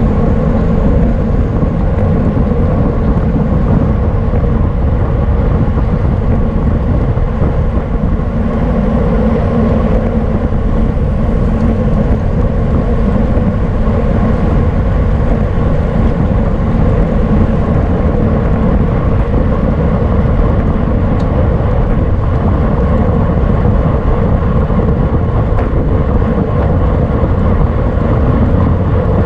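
Steady rush of wind buffeting the microphone of a camera riding on a road bicycle at racing speed.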